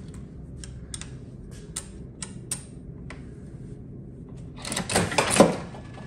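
Coins being fed into the coin slot of a 1940 Keeney Air Raider coin-op arcade machine: a series of light, irregular clicks, then a louder rattle about five seconds in.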